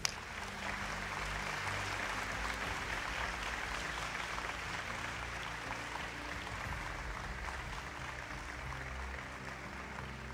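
Studio audience applauding steadily, fading slowly, with a faint low music bed underneath.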